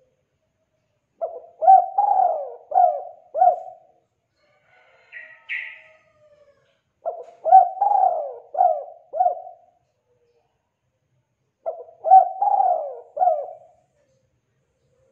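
Spotted dove (tekukur) cooing: three phrases of four or five low, rolling coos, a few seconds apart. A short, fainter, higher call comes between the first two phrases.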